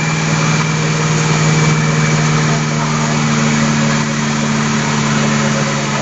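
Concrete mixer truck's diesel engine running steadily, turning the drum as it discharges concrete down the chute.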